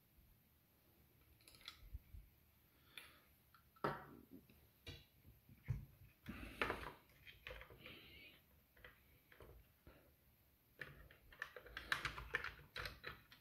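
Plastic parts of a Nerf Rival Roundhouse blaster being handled and pressed into its shell: scattered light clicks and knocks, with a quicker run of clicks near the end.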